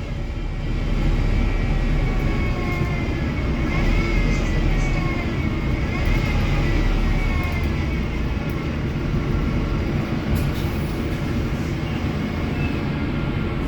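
Wrightbus StreetDeck HEV hybrid double-decker bus running, its Mercedes-Benz OM934 four-cylinder diesel giving a steady low rumble, with a high whine that rises and falls in pitch through the middle.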